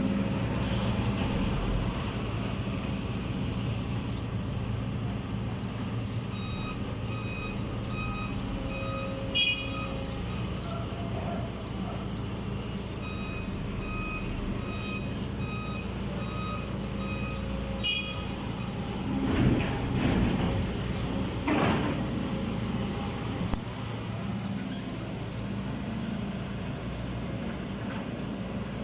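Diesel engine of a backhoe loader running steadily, with a reversing alarm beeping at an even pace from about a fifth of the way in until past the middle. About two-thirds of the way in come two louder, rougher surges of noise.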